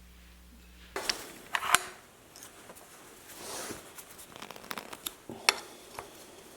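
A few sharp clicks and knocks with light scraping and handling noise in between, the loudest pair about one and a half seconds in and another about five and a half seconds in.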